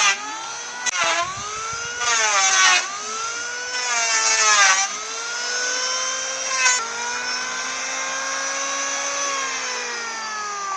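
A motor whining and revving, its pitch rising and falling several times, with a few harsh rushes of noise in the first half. It then holds a steadier pitch and slowly winds down near the end.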